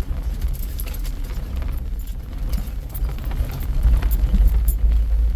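Vehicle driving a rough dirt forest road, heard from inside the cabin: a steady low rumble with frequent small rattles and knocks, growing louder about four seconds in.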